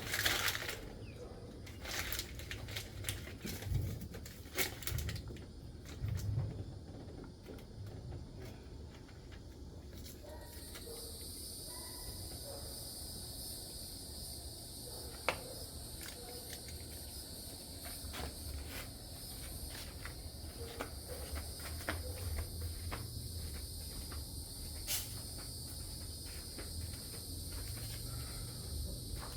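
Scattered knocks and clicks of handling work. About ten seconds in, a steady high chirring of insects starts and runs on, with occasional clicks over it.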